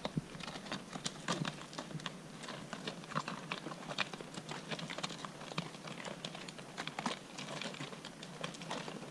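Horses' hooves walking on a rocky, gravelly trail: an irregular run of sharp clicks and knocks from shod hooves striking stones and scuffing gravel.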